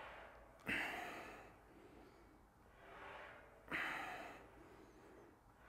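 A man breathing hard in time with cable reps: two sharp exhales about three seconds apart, each trailing off over about a second, with quieter inhales between.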